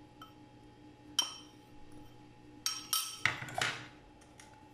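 Steel spoon clinking and scraping against an enamel bowl while ground jaggery is scraped out into a saucepan. There is a sharp clink about a second in, a few more near three seconds, and a short scraping rustle just after.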